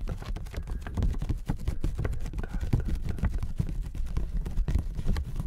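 Hands tapping and handling hard objects close to the microphone: a fast, irregular run of small clicks and knocks over low thuds.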